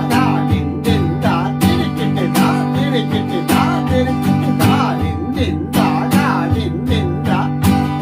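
Acoustic guitar strummed in a steady repeating chord pattern, a stronger accented stroke falling about every 0.8 seconds among lighter down and up strokes: a strumming pattern built on the 16-beat Teen Taal rhythm cycle.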